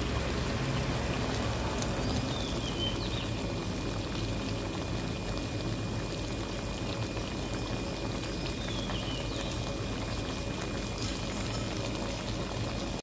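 Pork and tomato stir-fry bubbling and sizzling steadily in a wok.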